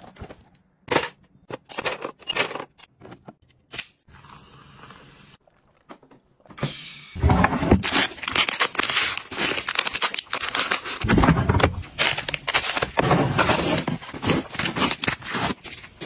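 Plastic-wrapped packets rustling and crinkling as they are handled and packed into a drawer. The first seconds hold scattered clicks and taps, with a short steady hiss about four seconds in.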